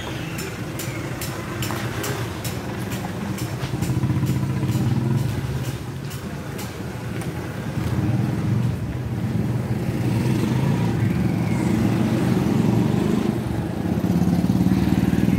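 A motor running with a low, uneven drone that swells louder about four, eight and fourteen seconds in, with a run of sharp ticks over the first half.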